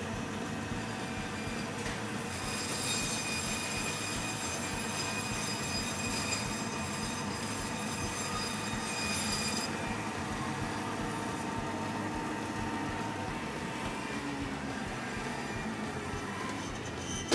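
Biro meat bandsaw running, its blade cutting the chine bone off a pork loin. It gives a steady high-pitched screech that is loudest from about two seconds in to about ten seconds in.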